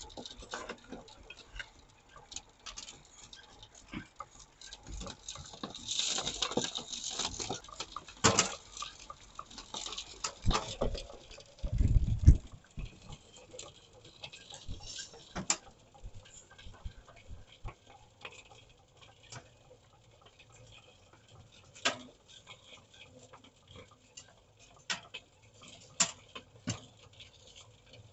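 Soil and stones being screened through a homemade scrap shaker table and wire-mesh trommel: irregular pattering, clicking and knocking of grit and stones on the mesh and boards. There is a denser rustle of sliding soil about six seconds in and a single heavy thud about twelve seconds in.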